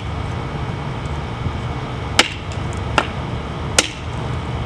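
Buck 632 Mesa fixed-blade knife chopping dry palm frond stems on a wooden stump: three sharp chops about a second apart, starting about two seconds in, over a steady low rumble.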